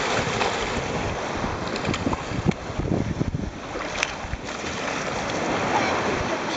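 Small waves breaking and water washing around the microphone in shallow surf, with wind buffeting the microphone and a few sharp splashes.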